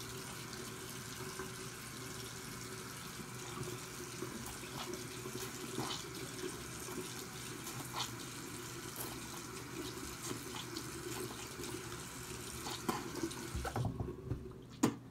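Bathroom sink tap running steadily, shut off about a second before the end, followed by a few light knocks.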